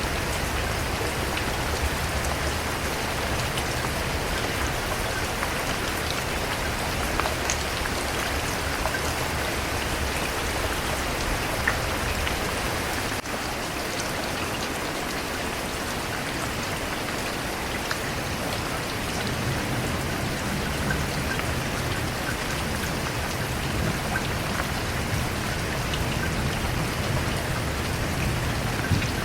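Steady rain falling on a surface, an even hiss with scattered individual drops ticking, and a low rumble underneath that grows stronger near the end.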